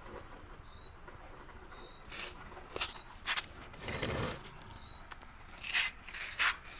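Several brief scrapes and rustles of parts and tools being handled, coming irregularly about half a second to a second apart over a quiet background.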